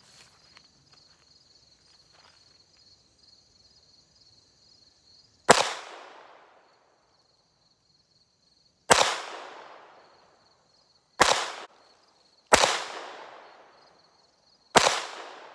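Five unsuppressed shots from an FN 502 .22 LR pistol firing Federal Auto Match, irregularly spaced one to three seconds apart, the first about five and a half seconds in; each crack trails off over about a second. Before the first shot, insects chirp steadily.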